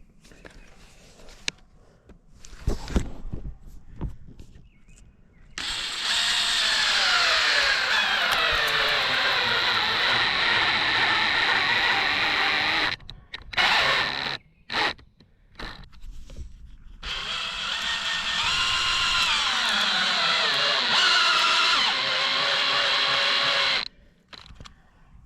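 Power drill running under load in two long runs of about seven seconds each, its pitch sagging as it bites, with a few short bursts in between. A few knocks come just before it.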